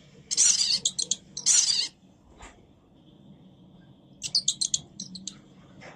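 A cat making sharp, high, noisy sounds, two half-second bursts close together near the start, then a quick run of short high chirps about four seconds in.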